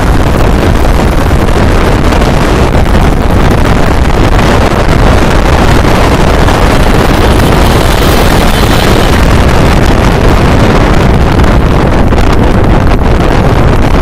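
Loud, steady wind buffeting on the microphone of a phone filming from a moving motorcycle, mixed with motorcycle engine and road noise.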